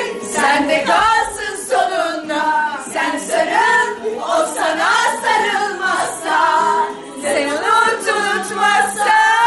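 A group of people singing a Turkish song together loudly, several voices in unison.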